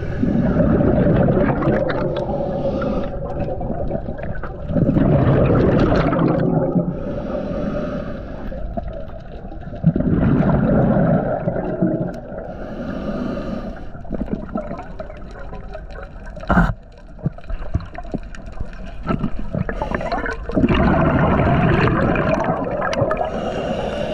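Scuba diver breathing underwater through a regulator: a hissing inhale, then a loud bubbling exhale, about every five seconds. A single sharp knock comes about two-thirds of the way through.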